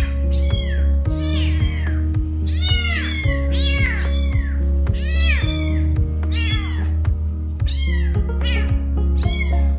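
Very young kittens mewing over and over in high, thin cries, each rising then falling in pitch, about one or two a second and sometimes overlapping: crying for their mother. Background music with a steady beat plays underneath.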